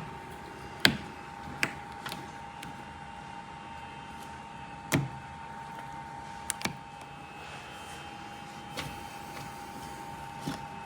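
Plastic car trim and a rubber cover being handled and pressed back into place: scattered sharp clicks and knocks, about seven of them, over a faint steady tone.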